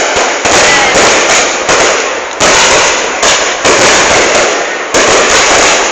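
Festival fireworks display: a rapid run of loud bangs, close to two a second, each fading away before the next.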